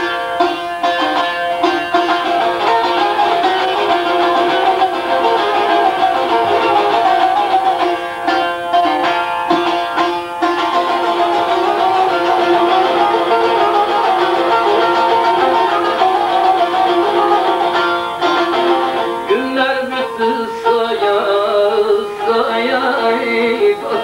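Bağlama (Turkish long-necked saz) played solo: a busy plucked melody with steady ringing notes held beneath it. The phrasing changes about 19 seconds in.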